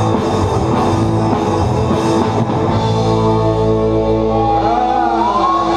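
Live rock band playing, with electric guitars and drums. The drum strokes stop about two and a half seconds in, leaving a held chord, and a melody line bends up and down near the end.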